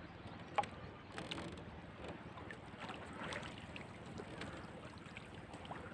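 Dull underwater noise with scattered sharp clicks and crackles, the loudest click about half a second in: the sound of a camera submerged during a spearfishing dive.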